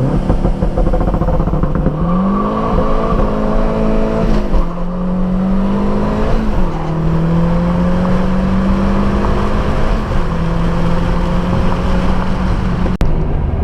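2009 Mazdaspeed 3's turbocharged 2.3-litre four-cylinder pulling under acceleration on a tune with about 4 psi more boost. The engine note rises, drops sharply at gear changes about four and a half and six and a half seconds in, then climbs slowly and levels off.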